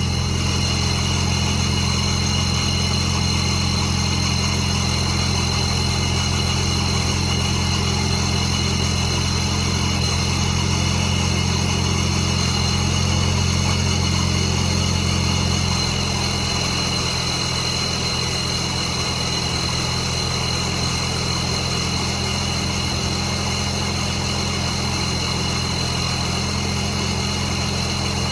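2017 Dodge Charger's 3.6-litre V6 with a newly installed Ripp supercharger idling steadily on its first start, with a steady high-pitched tone over the engine note. The idle settles slightly lower about halfway through.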